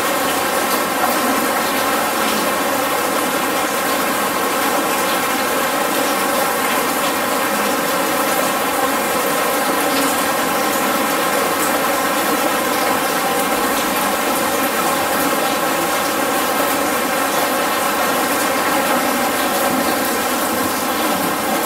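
Steady rush of artificially made rain falling through an art installation, water pouring and splashing without a break, with a faint even ringing hum running under it.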